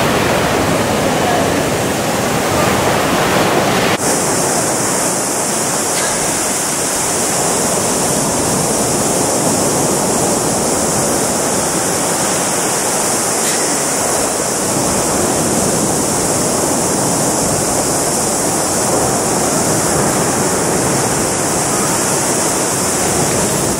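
Waves breaking and washing up a sandy beach, a steady loud rush of surf. About four seconds in the sound turns brighter and hissier.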